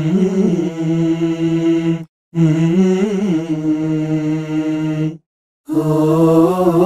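Playback of a man's a cappella singing, several recorded takes of the same voice stacked and panned across left and right. Long held notes with a short ornamented turn in each, in three phrases with brief breaks between them.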